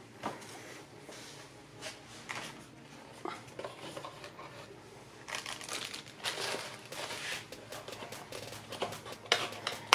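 Scattered light clicks, taps and rustling as hands fit a magnetic GPU support bracket inside a PC case, busier in the second half, over a faint steady low hum.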